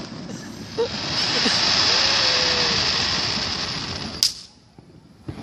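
Consumer fireworks: a sharp bang, then about three seconds of loud hissing crackle from a firework shower, ended by another sharp bang.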